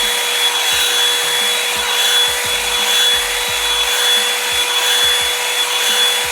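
Revlon One-Step hair dryer brush running steadily on its cool setting: a steady rush of air with an even motor whine.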